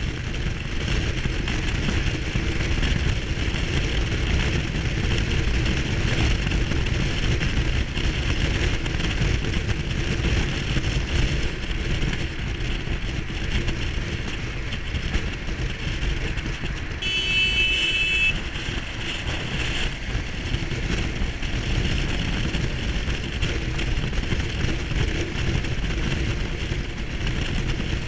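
Honda Transalp XL700V's V-twin engine running steadily at motorway cruising speed, mixed with heavy wind rush. About two-thirds of the way through, a horn beeps once for a little over a second.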